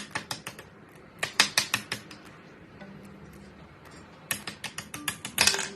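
Plastic toy game mechanism being turned by hand, clicking like a ratchet in two runs of rapid clicks, about a second in and again from about four seconds in.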